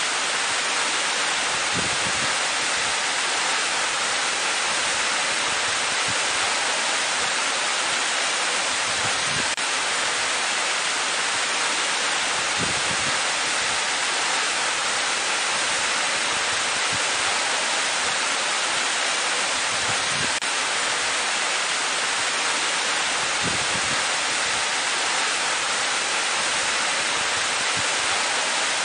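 Waterfall plunging into a pool: a steady, even rush of falling water that holds the same level throughout.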